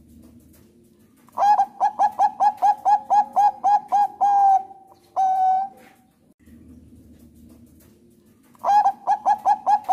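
Thai-bred zebra dove (perkutut bangkok) singing: a quick run of staccato cooing notes, about four a second, closing with one longer held coo about five seconds in. A second run of notes starts near the end.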